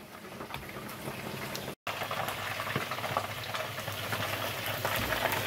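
Chicken wings deep-frying in hot oil in an electric deep fryer, the oil bubbling and crackling steadily, about nine minutes into the fry. The sound breaks off for a moment about two seconds in and comes back a little louder.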